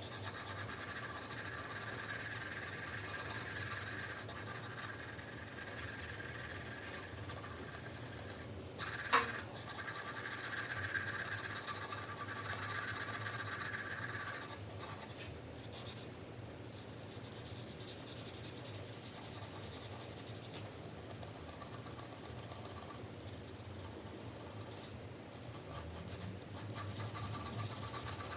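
4B graphite pencil shading on paper: continuous scratchy strokes with a few short pauses, laying down a value scale by varying pressure. A brief, sharper sound comes about nine seconds in.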